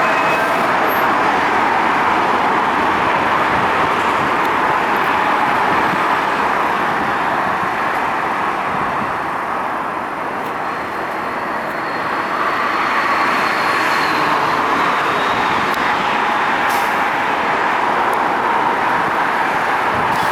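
An R142A subway train running through the station at speed without stopping, making steady wheel-on-rail noise. The noise eases slightly about ten seconds in and builds again soon after, with a faint high whine around then.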